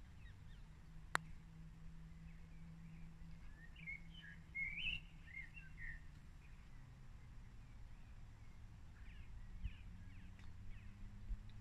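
A single sharp click of a putter striking a golf ball about a second in. Birds chirp a few times around the middle and again near the end, over a faint low steady hum.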